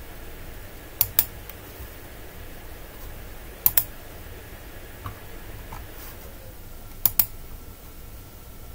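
Computer mouse clicks: three quick pairs of sharp clicks, a few seconds apart, as points are picked on screen, over a faint steady low hum.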